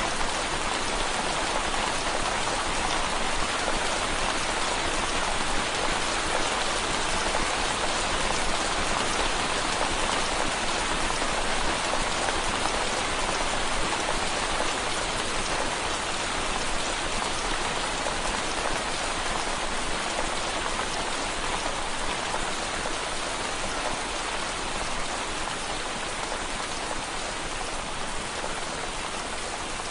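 Steady rain falling on window glass, a dense even hiss of many drops, growing a little quieter toward the end.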